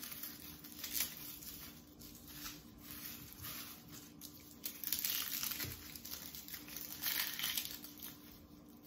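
Papery garlic skins crinkling and tearing as whole garlic bulbs are broken apart into cloves by hand, in irregular rustles.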